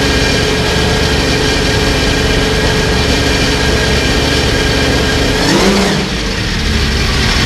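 Porsche 917's air-cooled flat-twelve racing engine running steadily at a fast idle, with a quick blip of the throttle about five and a half seconds in before it settles back to idle.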